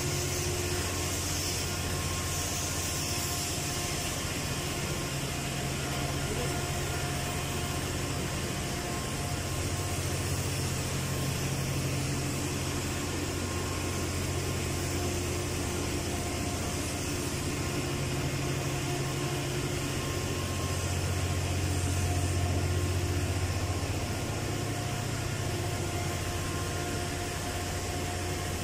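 Steady drone of heavy industrial plant machinery: a continuous low hum under an even hiss, with a few faint steady tones above it, swelling slightly about twenty seconds in.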